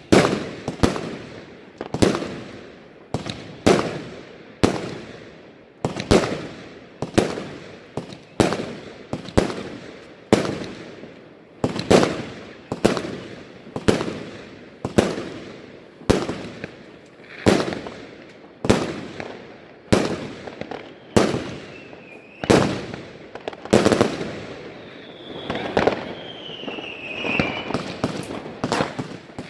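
A consumer firework battery firing shot after shot at a steady pace, about one bang every second, each bang trailing off in an echoing crackle. A wavering whistle sounds between the bangs in the later part.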